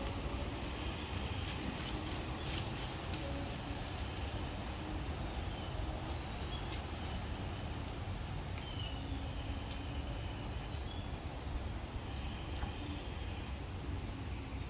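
Wind buffeting the microphone in a steady low rumble, with a cluster of sharp clicks about two seconds in and a few faint short chirps.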